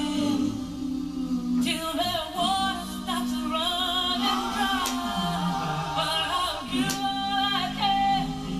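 Background music: a vocal group singing in harmony, with low held notes under a moving melody line.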